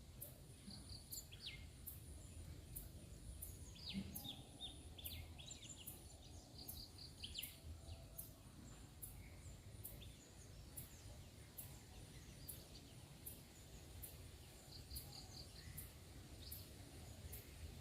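Faint outdoor ambience: small birds chirping now and then, a high steady insect-like hiss with faint regular ticks about two to three a second, and a low rumble underneath.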